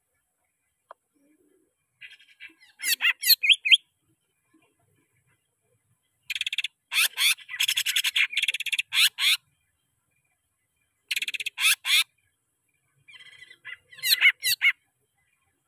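Caged green leafbird (cucak ijo) singing in four bursts of rapid, scratchy chattering and warbling, each lasting one to three seconds, with pauses between.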